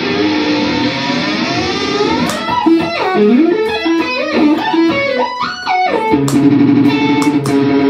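Electric guitar playing avant-garde music. Held notes glide upward at first, then quick stepping and sliding pitches come with sharp clicks. About six seconds in it settles into a held, sustained chord.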